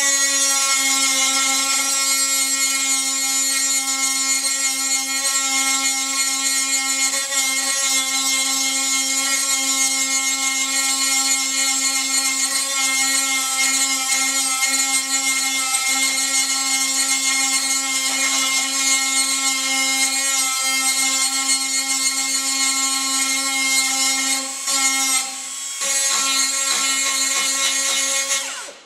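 Die grinder with a Christmas-tree-shaped burr running at a steady high-pitched whine while grinding sheet steel smooth at a welded repair. The whine falters briefly about 25 seconds in and stops just before the end.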